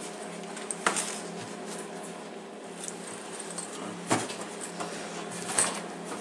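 Items being handled while rummaging in a backpack: rustling with three sharp knocks and clinks, about a second in, around four seconds and near the end, over a steady low hum.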